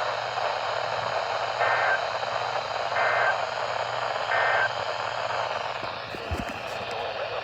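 Emergency Alert System end-of-message code: three short warbling data bursts about a second apart, over steady radio static hiss, sent to close a flash flood warning. A few faint knocks come near the end.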